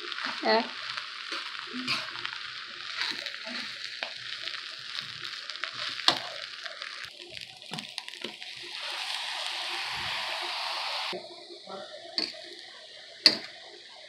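Fried rice sizzling in a hot pan while it is stirred with a spatula, with a few sharp knocks of the utensil on the pan. The sizzle grows louder for a few seconds after the middle, where dark sauce has gone onto the rice, then drops off suddenly.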